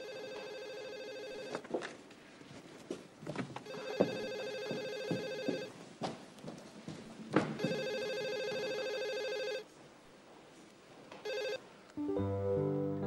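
Telephone ringing with a trilling electronic ring: three rings of about a second and a half each, evenly spaced, then a short fourth burst that breaks off. A few knocks and taps fall between the rings, and soft guitar music starts near the end.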